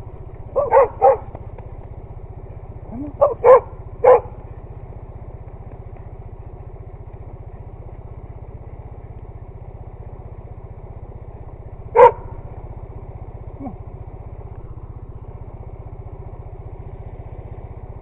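Dog barking in short sharp barks, three in quick succession near the start, three more around three to four seconds in and a single loud bark about twelve seconds in, over a motorcycle engine idling steadily.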